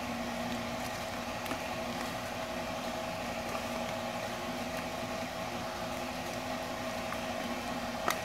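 Steady mechanical hum holding two even tones, with a few faint clicks.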